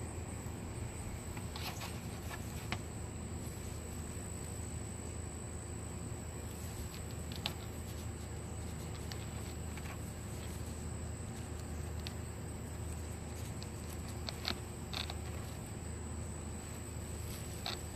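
A steady high-pitched insect drone over a low background hum, with scattered soft clicks and rustles as a hand works a zippered mesh butterfly cage.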